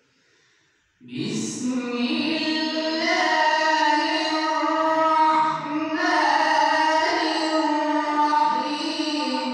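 A man reciting the Quran in the melodic tilawat style, singing long held, wavering notes into a microphone. The recitation begins about a second in, after a brief silence, with a short break a little past halfway.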